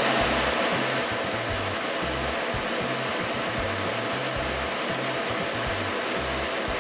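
Laser cutter at work cutting lettering from hard paper: a steady rush of air from its fans and blower, under a low motor hum that shifts in short steps as the head moves from stroke to stroke.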